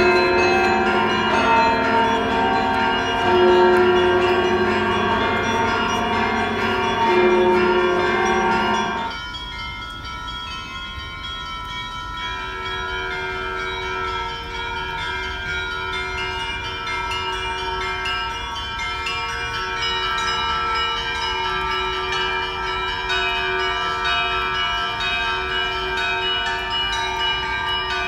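Orthodox cathedral church bells ringing a peal, several bells of different pitches sounding together and overlapping. The deepest bells stop about nine seconds in, leaving the higher bells ringing alone for a few seconds, before lower bells come in again.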